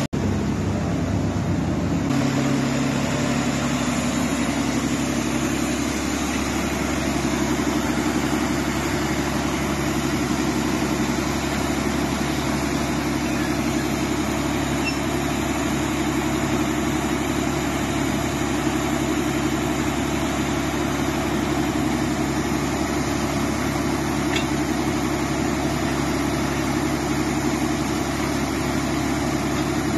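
Heavy diesel engine of a truck-mounted water well drilling rig, idling steadily.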